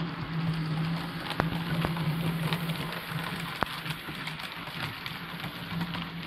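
Model freight train rolling past on model track behind a model Union Pacific gas-turbine locomotive: a steady rattle of wheels on rail with scattered sharp clicks, over a low hum that drops out after about four seconds and returns near the end.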